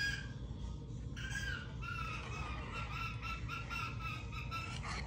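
Pet bird chattering: one call about a second in, then a run of short repeated chirps, about three a second.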